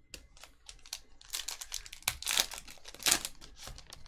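Foil wrapper of a Panini Select trading card pack crinkling as it is torn open. A few light clicks come first, then a dense run of crackly rustling through the middle.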